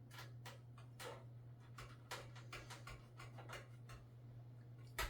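Scattered light clicks and taps of small metal and plastic parts being handled during a PC motherboard installation, irregularly spaced, over a steady low hum. The loudest click comes near the end.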